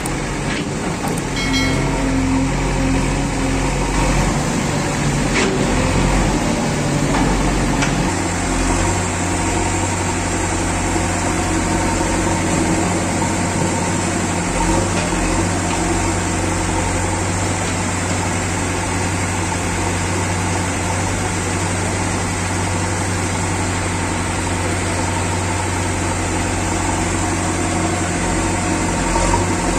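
JCB 3DX backhoe loader's diesel engine running while the backhoe arm digs sand, with a few knocks in the first several seconds. About eight seconds in the engine note changes, then holds steady.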